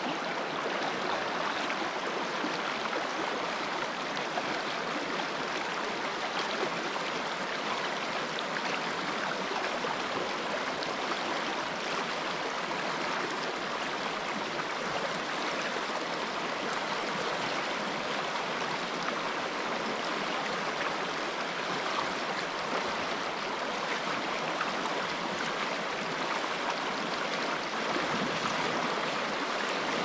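Fast-flowing mountain stream running high, its water rushing steadily.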